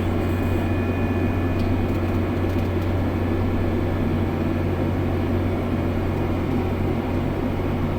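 Tractor running steadily while planting, heard from inside the cab: an even, low engine drone with a fan-like hiss over it.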